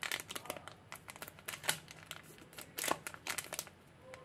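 Irregular crinkling of a foil anti-static bag and bubble-wrap packaging being handled, thinning out near the end.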